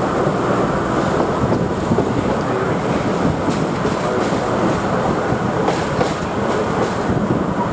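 QR 2000 Class rail motor running along the track: a steady rumble and rattle of the railcar, with a few faint clicks from the wheels.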